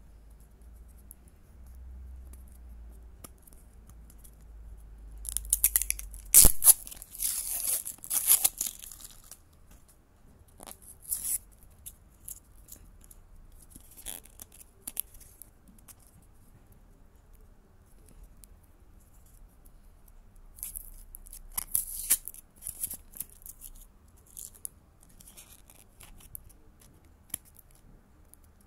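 Plastic shrink-wrap being cut and torn off a plastic toy capsule, crinkling and ripping in several bursts. The loudest burst has a sharp click about six seconds in.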